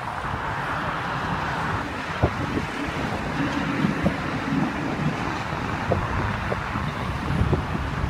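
Mobile crane's diesel engine running steadily under a concrete wall panel lift, with wind on the microphone and a few faint knocks.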